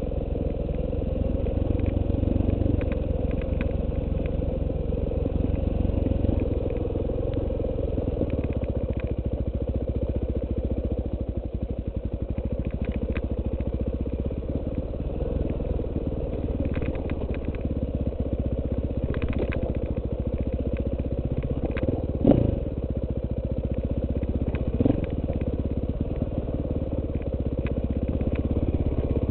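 KTM 450 EXC single-cylinder four-stroke dirt bike engine running steadily as the bike rides a rough dirt trail, with small clicks and clatter throughout. Two sharp knocks stand out near the end, a couple of seconds apart.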